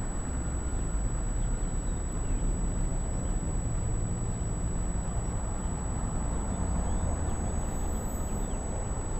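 Steady low outdoor rumble with no clear events, with a few faint high chirps near the end.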